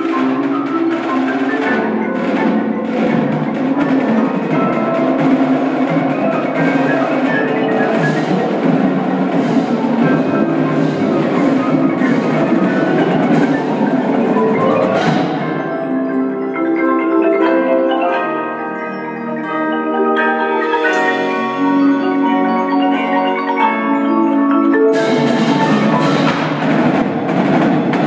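Indoor percussion ensemble playing: front-ensemble marimbas and other mallet keyboards with the drumline. About 15 seconds in the sharp drum strokes stop and the mallets play held chords alone, then the full ensemble comes back in with loud hits about 25 seconds in.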